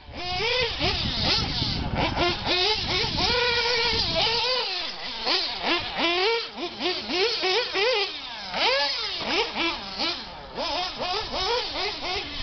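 1:8-scale Losi off-road RC buggy's small nitro engine revving up and down in quick throttle bursts, its high pitch rising and falling every fraction of a second.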